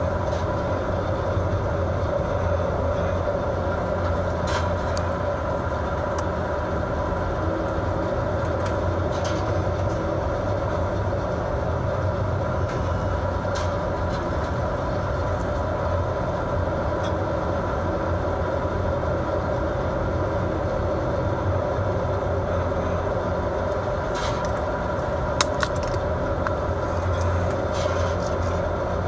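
Fishing vessel's engine and machinery droning steadily in heavy seas, a constant low hum with a few light clicks and rattles here and there.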